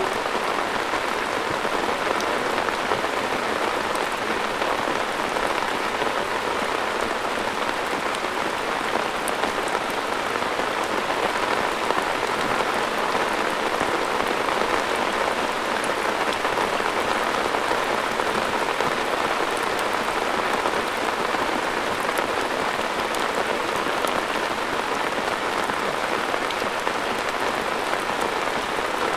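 Heavy rain pouring down steadily, a dense even hiss of drops striking a surface.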